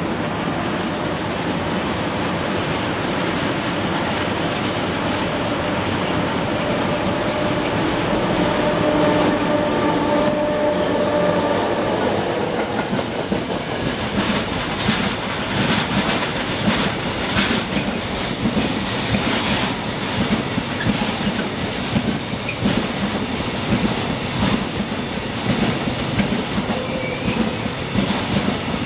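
Container train rolling past: a steady rumble with a few held tones in the first half. From about halfway through come rapid, uneven clicks of the wagon wheels over the rail joints.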